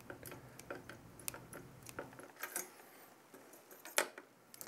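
Faint small metallic clicks and ticks of a screwdriver working the cooler's mounting screws as they are tightened, with one sharper click about four seconds in.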